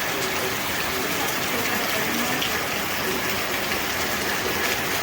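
A steady rushing noise, even and unbroken, with a few faint tones under it.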